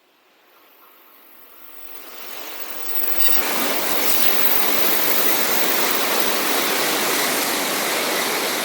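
Shinkansen bullet train passing at speed: a rushing noise that swells over about three seconds, holds steady and loud, and starts to die away near the end.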